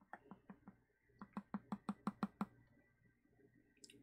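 Metal spoon clinking against the inside of a ceramic mug as a drink is stirred: a quick, even run of light ticks, about six a second, that stops briefly and then comes again louder, ending about two and a half seconds in.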